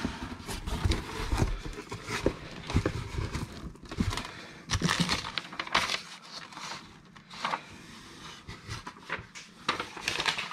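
Packaging and cardboard rustling and crinkling as the contents of a parcel are handled and moved about, with scattered small knocks and clicks.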